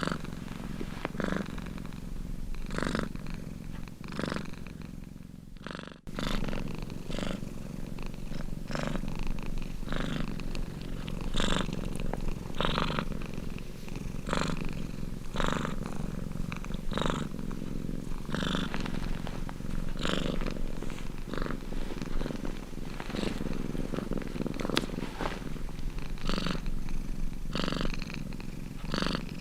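Domestic cat purring steadily, the purr swelling about every second and a half with each breath in and out. The purr dips briefly and cuts back in sharply about six seconds in.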